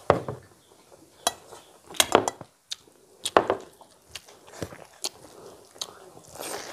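Close-miked eating by hand: chewing and lip smacks, with fingers mixing rice and curry on steel plates, heard as a string of sharp, irregular clicks and smacks.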